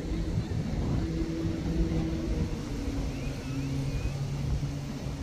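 An engine's low, steady hum whose pitch shifts in small steps, over low rumbling wind noise on the microphone.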